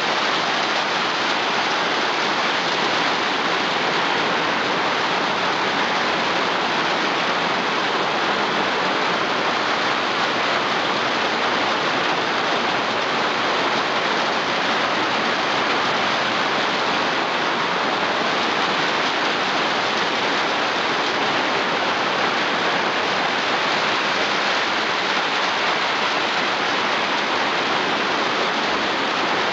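Rain falling on a tin roof, heard from underneath: a loud, steady rush with no let-up.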